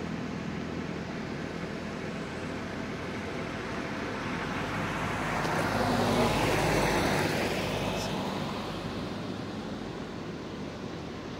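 Road traffic: a vehicle passes close by, its noise swelling to a peak about six seconds in and then fading, over a steady hum of distant traffic.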